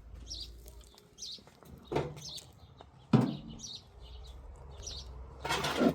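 Small bird chirping over and over, short high calls less than a second apart. A few sharp knocks break in, the loudest about three seconds in, and there is a brief burst of noise near the end.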